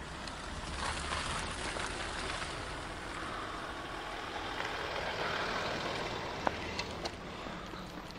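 Land Rover Discovery SUV driving slowly past on a narrow tarmac lane, its engine and tyre noise swelling as it comes close and goes by. A few sharp ticks near the end.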